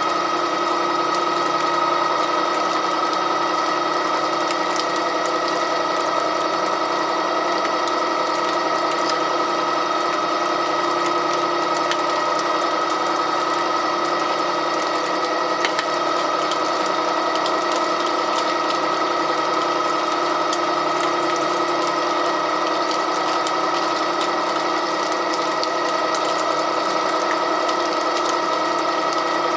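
REX 6590 pipe threading machine running, its gear drive and condenser motor giving a steady whine of several even tones as the die head cuts threads into the pipe.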